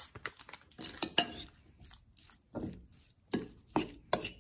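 Metal slotted spoon clinking and scraping against a ceramic bowl while stirring seasoned raw chicken pieces, in a string of irregular knocks.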